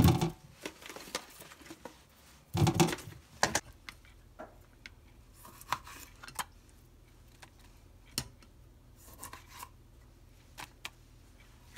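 A kitchen knife halves cherry tomatoes on a plastic cutting board, giving scattered soft clicks and taps as the blade meets the board. A louder clatter of handling about three seconds in.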